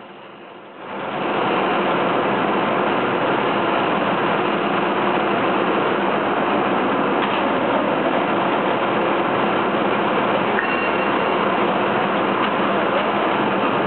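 Vertical turning lathe machining a large metal workpiece: a steady, loud noise of the tool cutting and the machine running, which comes in about a second in.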